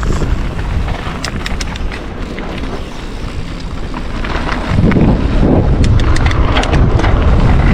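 Wind buffeting the microphone of a camera riding along on a mountain bike, over the rumble of the bike rolling down the trail, with scattered sharp clicks and knocks. It gets louder about five seconds in.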